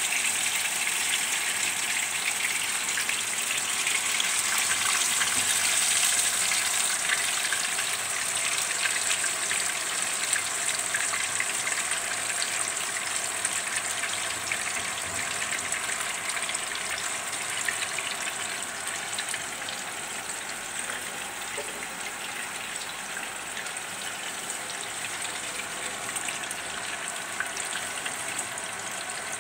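Whole tilapia frying in hot oil in a wok: a steady sizzle full of fine crackles and pops, loudest in the first several seconds and easing a little after that.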